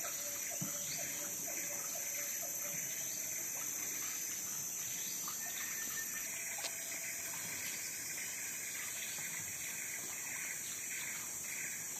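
Steady outdoor ambience: trickling water under a constant high-pitched insect drone.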